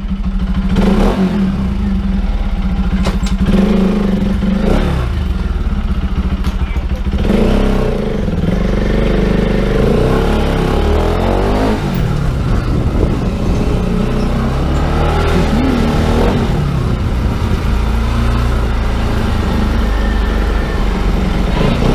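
Motorcycle engine running under way at low speed, its revs rising and falling with the throttle several times.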